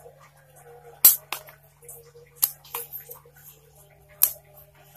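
Scissors snipping leaves and twigs off a potted mulberry tree: several sharp snips, the loudest about a second in and another just after four seconds.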